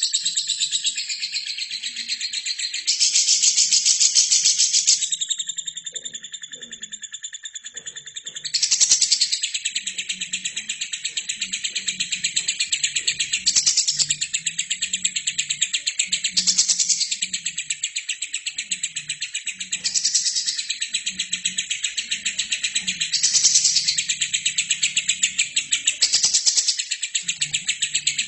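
Lovebird singing a long, unbroken run of rapid chattering chirps, swelling louder about every three seconds.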